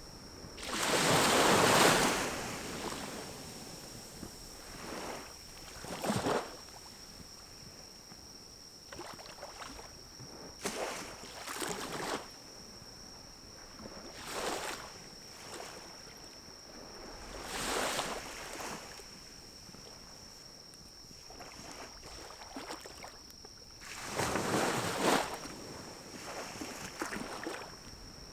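Pine cones burning in a small wood-burning stove: a low fire hiss broken by irregular whooshing surges a second or two long, with faint crackles, over a steady high-pitched tone.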